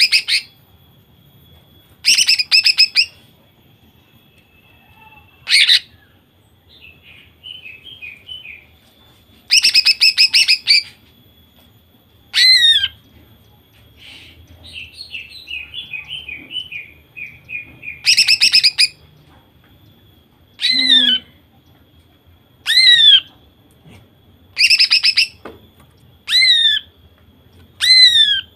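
Female greater green leafbird (cucak ijo) calling in its 'nembak' style: loud rapid-fire phrases about a second long, sharp falling single notes, and softer twittering in between. These are the calls of a hen in breeding mood, used to stir male leafbirds into song.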